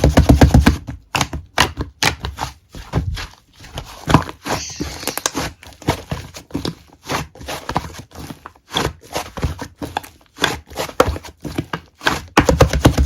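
Slime being squeezed and pressed by hand, giving a run of rapid clicks and pops, with fast dense runs of clicks at the start and again near the end.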